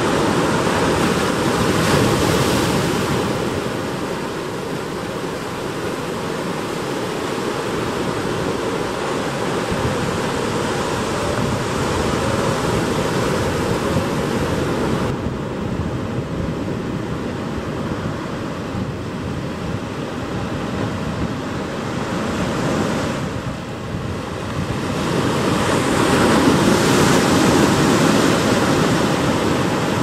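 Ocean surf washing over and breaking against coastal rocks: a steady rushing that swells louder about two seconds in and again near the end.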